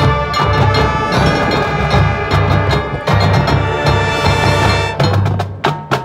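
Marching band playing live: held wind chords over low, pulsing bass notes, with percussion underneath. From about five seconds in, the chords thin out and a run of sharp percussion strikes takes over.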